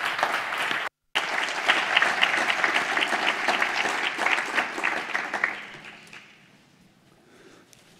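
Audience applauding, broken by a split-second dropout about a second in, then dying away about six seconds in.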